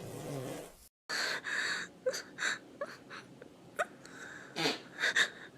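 A brief low rasp, then, after a cut, a young woman's breathy gasps broken by short rising squeals in quick succession.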